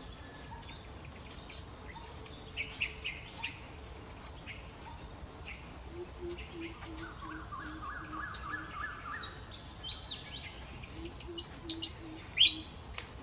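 Wild birds calling in the background. There is a fast run of repeated notes about six seconds in, a slower series of low hooting notes, and sharp, high, down-slurred chirps that are loudest near the end.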